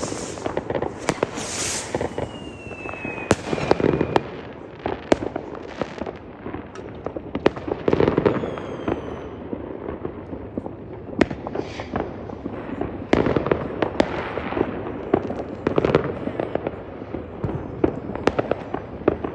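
Fireworks going off continuously: many sharp bangs and crackling reports, some heavier booms, and a couple of whistling rockets with falling pitch.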